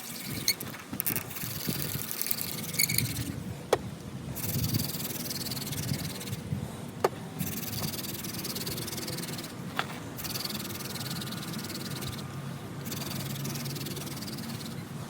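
Yucca hand-drill spindle spinning on a crepe myrtle fire board, a steady rasping friction noise that breaks off briefly about every three seconds as the hands move back up the spindle.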